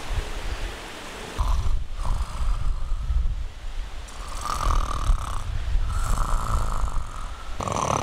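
A man snoring: a run of drawn-out, rasping snores, each lasting about a second.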